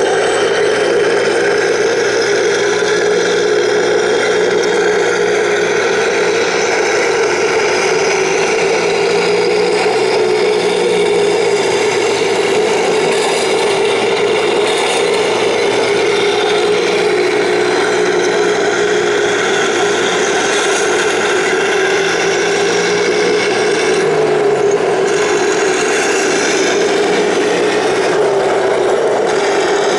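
1/16-scale radio-controlled model tanks running: a steady whine from their electric gear motors, with the tracks scraping and rattling. The motor pitch shifts briefly about three-quarters of the way through.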